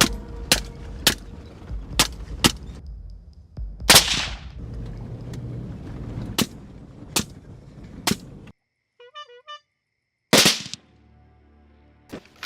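Gunshots: a string of sharp, unevenly spaced shots over dark background music. The music cuts out about eight seconds in, and after a short pause one last loud shot rings out.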